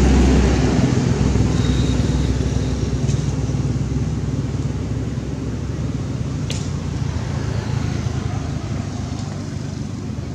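Steady low hum of a motor vehicle's engine running, slowly fading, with a single brief tick about six and a half seconds in.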